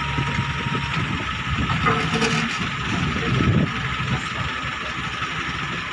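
Excavator's diesel engine running steadily while it works its boom and bucket, with a low uneven rumble.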